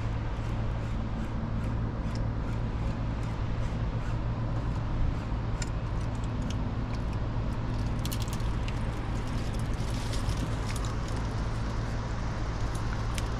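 A steady low motor drone, with a fast, even ticking of a fishing reel being wound in during the first few seconds and a cluster of sharp clicks a little past the middle.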